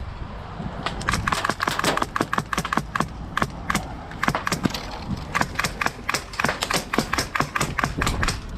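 A rapid, irregular series of sharp clicks and cracks, several a second, in two runs with a short lull about four to five seconds in.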